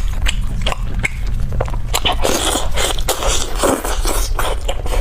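Close-miked eating of meat off a pork leg bone: biting, chewing and wet lip-smacking, with sharp clicks throughout and denser smacking from about two seconds in.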